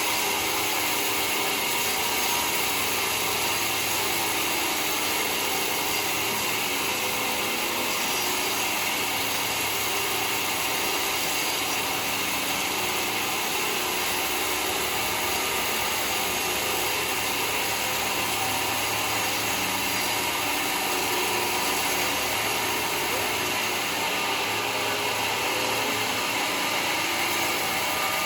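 Sawmill running steadily, its blade cutting lengthwise through mahogany wood with an even, unbroken whine and hiss.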